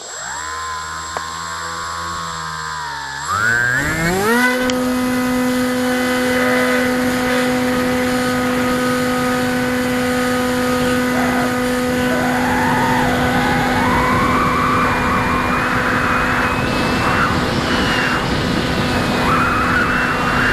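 Electric motor and pusher propeller of a Bixler foam RC plane heard up close from on board. The motor starts at low throttle with its pitch dipping, then about three seconds in spins up quickly to a steady high whine that holds, over a rush of wind noise.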